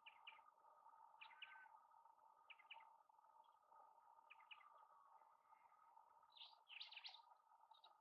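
Faint bird chirps: short high notes in quick groups of two or three, about once a second, with a busier cluster near the end, over a steady faint hum.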